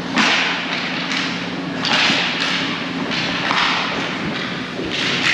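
Ice hockey skate blades scraping the ice in short hissing strokes, about seven in five seconds, with thuds of stick and puck, over a steady low rink hum.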